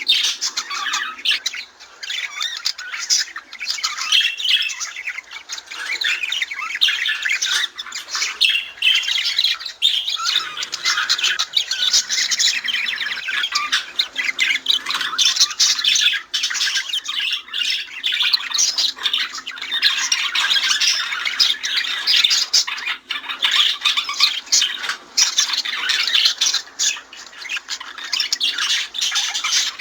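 Budgerigars chattering and warbling: a continuous jumble of rapid chirps, squawks and clicks.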